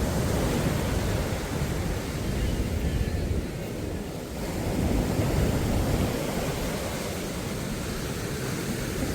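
Sea waves washing in and out on a beach, with wind rumbling on the microphone. The wash dips slightly about three to four seconds in, then swells again.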